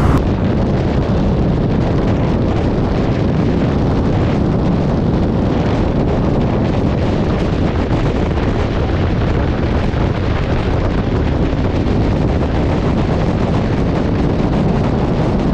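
Steady wind noise on the microphone of a rider on a 125 cc scooter moving at speed.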